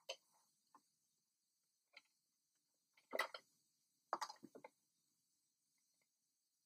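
Mostly near silence, broken by a few short clicks and scuffs from hands handling fabric at a sewing machine. The loudest are two brief clusters a little past the middle.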